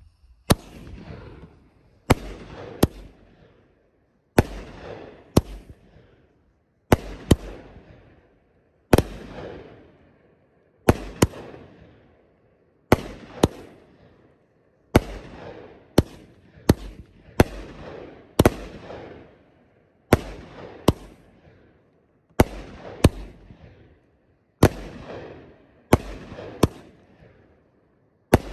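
Consumer firework cake (aerial repeater) firing shot after shot: a sharp bang about every two seconds, often two in quick succession, each trailing off over about a second.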